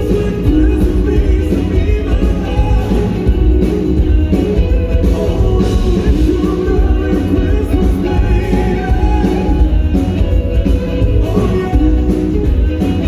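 Band and singers performing a song, with a steady drum beat and strong bass.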